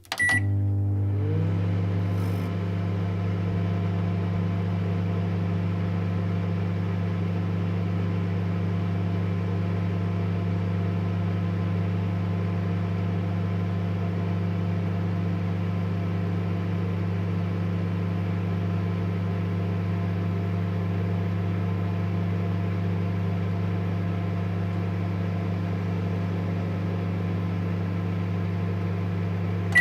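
Microwave oven started with a short beep, then running with a steady electrical hum and whirr.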